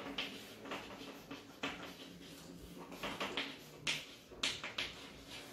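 Chalk scratching and tapping on a blackboard as words are written: a run of short, sharp strokes with brief pauses between them, loudest near the end.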